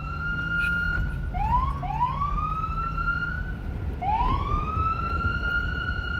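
Police car siren wailing: a held high tone breaks off, then the pitch sweeps up from low three times, about a second and a half, two and four seconds in, the last sweep held high. A low rumble runs underneath.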